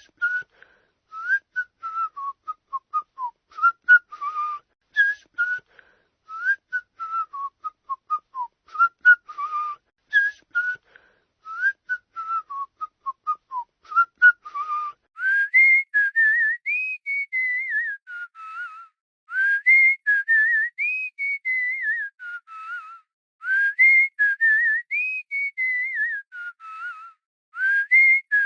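A person whistling: for about fifteen seconds, repeated short phrases of quick notes that step downward. Then longer notes that glide up and down, in higher repeated phrases.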